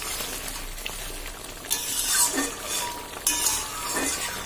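Metal spatula stirring and scraping through simmering fish curry in a kadai, over a light sizzle, with small clinks against the pan. Two louder scrapes come about two and three and a half seconds in.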